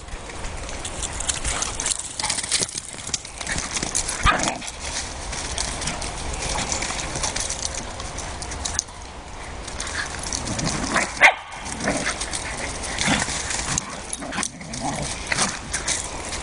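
Whippets barking and yipping as they play-fight, over a steady rustle of noise with many short sharp sounds.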